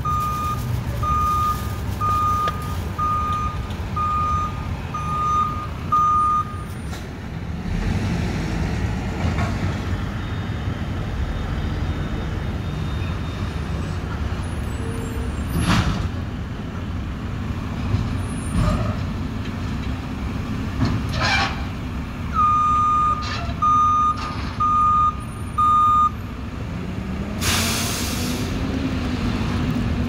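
Mack front-loader garbage truck running, its reversing alarm beeping about once a second for several seconds at the start and four more times later on. The engine revs up twice, and there are a few short air hisses and clanks, the longest hiss near the end.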